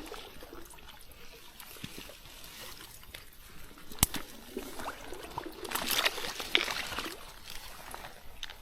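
Water trickling and splashing, with a sharp knock about four seconds in and louder splashing a little after.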